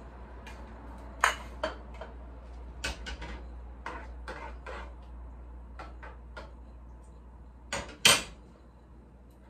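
Spoon knocking and scraping against a saucepan while stirring a stew, a string of sharp clinks, with a loud clack about eight seconds in as the spoon meets the spoon rest.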